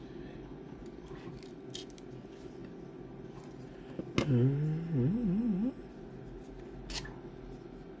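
A few sharp clicks from the 3D-printed plastic lamp parts being handled. About four seconds in, a short wordless vocal sound lasts about a second and a half, its pitch rising and then wavering up and down.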